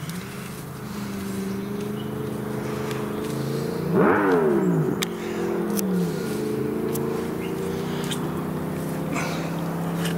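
Motorcycle engine running steadily. It is revved hard about four seconds in, the pitch falling quickly after, and revved again more briefly around six seconds.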